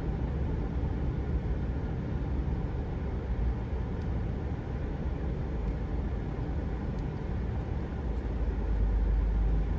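Truck driving, a steady low engine and road rumble with no other distinct event.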